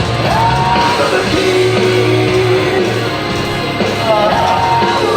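Rock music with long held notes over a steady low bass.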